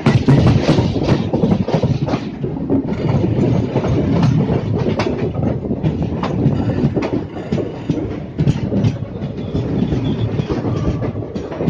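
Passenger coaches of an express train rolling past close by. Their wheels clatter over the rail joints and points in irregular clicks over a loud, continuous rumble.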